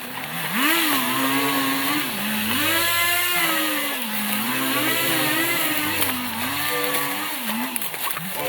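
Chainsaw running while cutting lumber, its pitch rising and dipping again and again as the cut loads and frees the engine.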